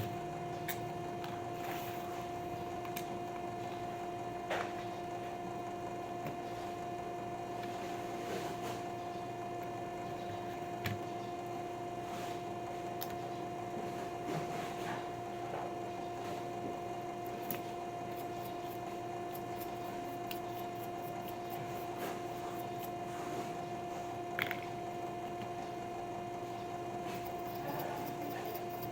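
A steady electrical hum with two pitches, one low and one an octave above it, and a few faint light clicks scattered through.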